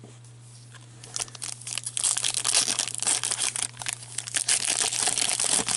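Hockey card pack wrapper being torn open and crinkled in gloved hands: a dense run of crackling and rustling that starts about a second in.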